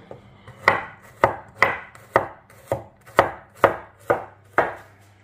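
Chef's knife slicing garlic cloves on a wooden cutting board: about nine sharp knocks of the blade against the board, roughly two a second.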